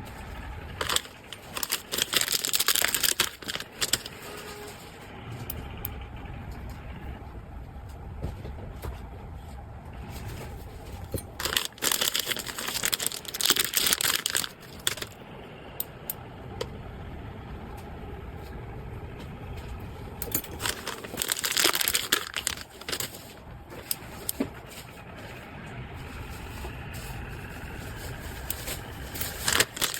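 Packaging being crinkled and handled in three bursts of crackling, the first about a second in, one near the middle and one about two-thirds through, with a faint low rumble between them.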